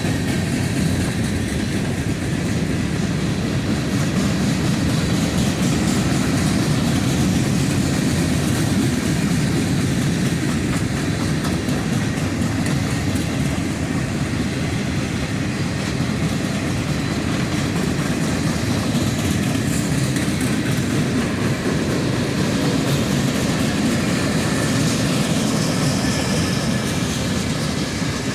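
A train's cars rolling steadily past, wheels rumbling and clicking over the rail joints.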